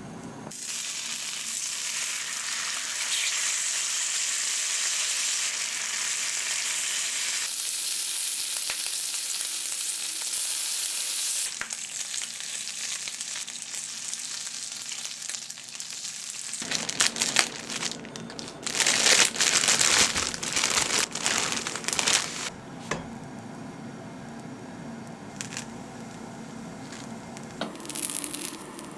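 Bacon sizzling in plenty of olive oil in a black iron frying pan, a steady loud hiss that starts just after the beginning and eases about a third of the way through. About two-thirds of the way through come several seconds of louder, irregular crackling and clicking, after which a quieter sizzle goes on.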